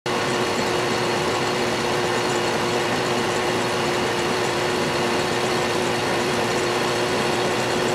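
Metal lathe running steadily while turning a taper, the cutting tool fed by the compound rest: an even machine noise with a constant hum-like tone and a faint high whine.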